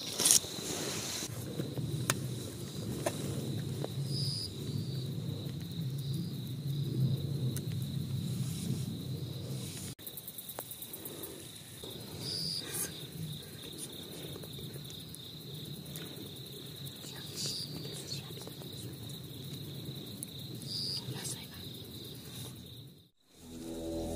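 Night insects, crickets among them, trilling steadily on one high pitch, with a few short chirps from other insects and a low rustling underneath.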